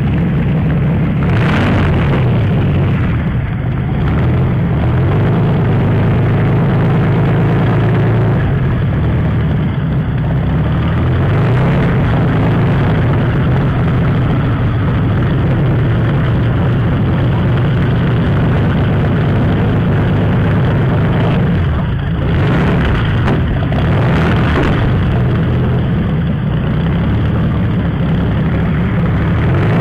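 Deep, heavy piston engine running steadily, billed as a 60-litre V8 tank engine, the sound concentrated in a low rumble. Brief louder, rougher surges come near the start and twice about three-quarters of the way through.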